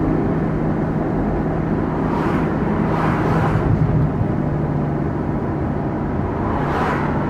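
Ferrari GTC4 Lusso cruising at a steady speed: a steady low engine drone under constant wind and tyre noise. Swells of noise from passing traffic come about two to three and a half seconds in and again near the end.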